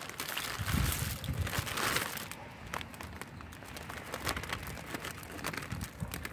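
Plastic bag of dry egg noodles crinkling as it is tipped and shaken, with the noodles sliding out and dropping into a pot of broth. The crackling is loudest about one to two seconds in.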